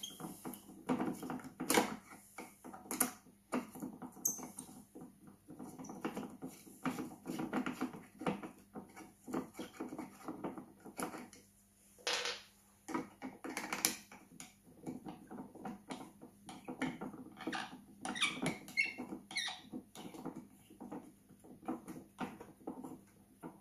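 Hand-tool work on a Gotway MS3 electric unicycle's plastic casing: screws are backed out and handled with a screwdriver, giving irregular small clicks, scrapes and taps, some louder than others.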